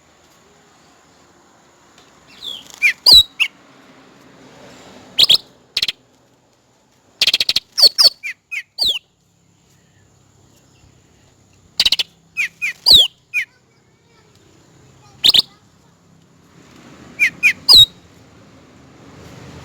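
Cucak rante (cucak ranting) bird calling: clusters of short, sharp whistled notes, many sliding steeply down in pitch, repeated every two to three seconds with brief pauses between.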